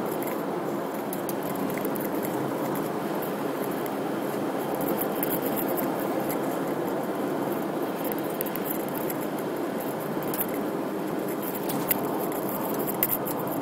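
Steady road and engine noise of a moving car heard from inside its cabin, with a couple of light clicks near the end.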